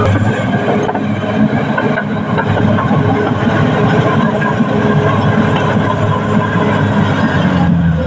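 Caterpillar D6R XL crawler bulldozer working: its diesel engine running under load with the clatter of its steel tracks. Near the end the engine settles to a steadier note.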